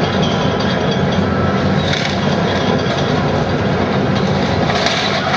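Heavy diesel demolition machinery running steadily, with knocks of debris about two seconds in and near the end.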